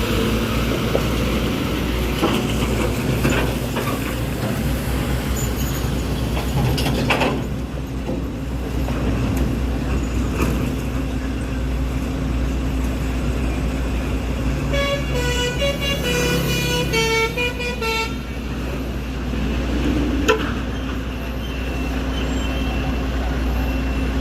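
Heavy diesel truck engines running under load with a steady low rumble. About 15 seconds in, a vehicle horn sounds a quick run of notes that step up and down in pitch for about three seconds; two single knocks stand out, one near 7 seconds and one near 20 seconds.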